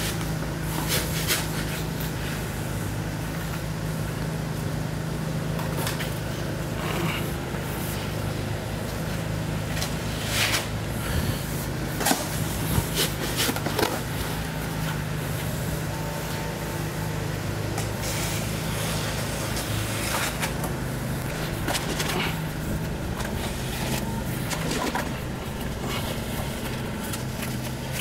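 A shovel scraping and knocking in a plastic tub as wet castable refractory is scooped out and dropped into a furnace mould, a sharp scrape every few seconds. A steady low hum runs underneath.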